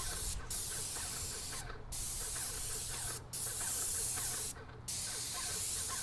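Titan 440 airless paint sprayer spraying wood stain, a loud hiss from the spray tip in passes of one to two seconds, the trigger let go briefly four times.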